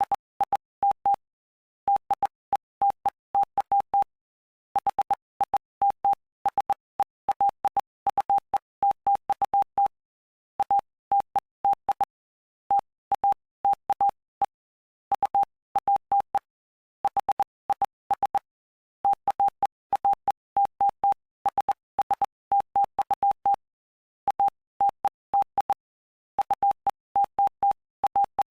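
Morse code: a single steady beep keyed on and off in dots and dashes, in quick groups separated by short pauses between letters and longer pauses between words. It spells out the text of Mark chapter 8 of the Bible for Morse practice.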